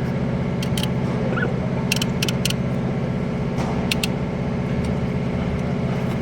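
A motor engine running steadily in the background, with several sharp metallic clicks over it, as of tools or metal parts being handled.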